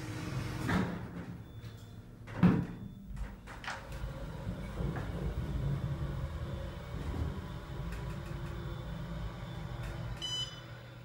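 Elevator car doors sliding shut, with a knock about a second in and a louder thump about two and a half seconds in. The car then travels down with a steady low rumble, and a short electronic tone sounds near the end as it reaches the floor.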